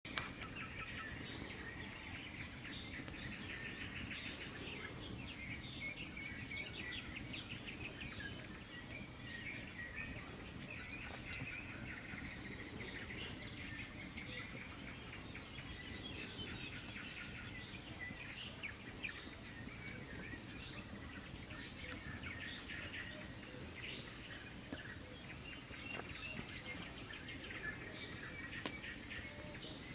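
Songbirds chirping and trilling continuously, several birds overlapping, over a steady low background hum of outdoor noise, with an occasional faint sharp click.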